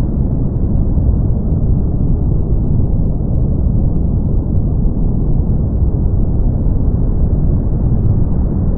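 Brown noise: a steady, deep hiss, heaviest in the bass and dull, with no treble.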